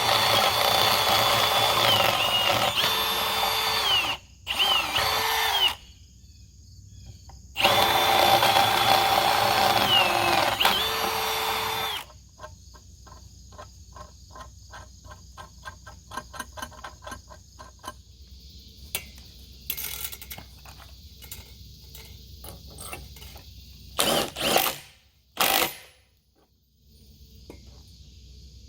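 Power drill boring pilot holes for eyelet bolts, running in two long runs under load with a short burst between, its motor pitch dipping and recovering as the bit cuts. The drill stops after about twelve seconds and is followed by faint clicking and handling, then two brief bursts of the drill near the end.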